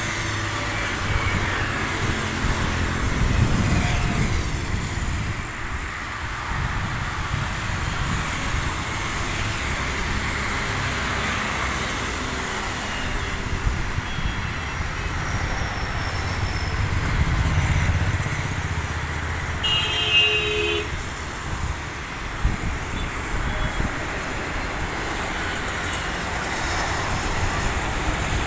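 Busy road traffic, cars and motorcycles passing in a steady rumble, with a vehicle horn tooting briefly about two-thirds of the way through.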